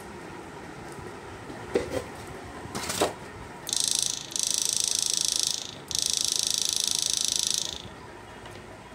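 High-voltage output of a homemade electric fishing inverter arcing, a loud high-pitched electric buzz in three bursts lasting about four seconds, after two sharp clicks. It is the spark of the two output leads brought together, which the maker warns should never be done.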